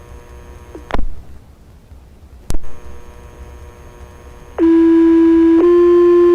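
Fire radio channel: two radio clicks over a faint hum, then a loud, buzzy two-tone pager alert, one steady tone for about a second followed by a slightly higher tone held on, the tone sequence that sets off the firefighters' pagers.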